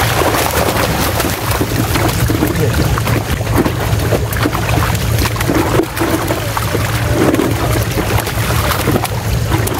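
Fish thrashing and splashing in shallow water crowded inside a seine net as they are grabbed out by hand: many quick slaps and splashes over a steady low hum.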